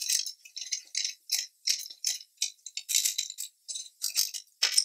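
Flat steel bars being worked in a metal bench vise: a quick, even run of short metallic scraping and clinking strokes, about three a second.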